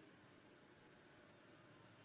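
Near silence: faint room tone and hiss, with no keystrokes.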